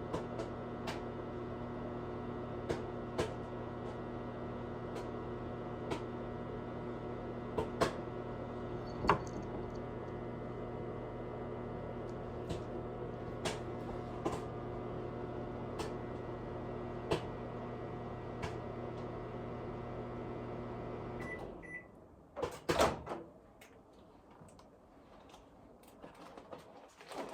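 Microwave oven running with a steady hum while popcorn kernels pop sparsely, a sharp pop every second or two. About 21 seconds in the hum cuts off, two short beeps sound, and a few loud clacks follow as the microwave door is opened.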